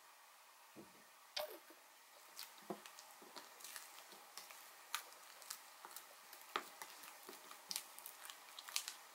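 Fluffy clay-mixed slime being squished and worked by hand, giving faint, irregular sticky pops and clicks that start about a second in.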